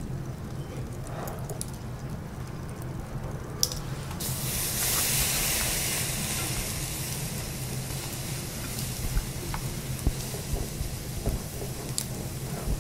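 Matsusaka wagyu steak laid on a wire grill over hot charcoal, sizzling strongly from about four seconds in, with the hiss slowly easing off. A few light clicks of chopsticks in a ceramic sauce bowl come near the end, over a steady low hum.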